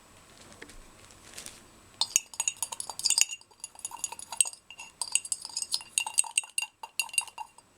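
A utensil stirring PVA glue with a little paint mixed in, in a small cup, making rapid light clinks against the cup's side. The clinking starts about two seconds in, pauses briefly, then carries on until near the end.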